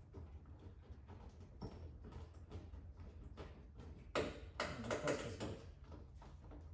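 Faint scattered taps and clicks, then a louder clatter of knocks lasting about a second and a half, starting around four seconds in, over a low steady hum.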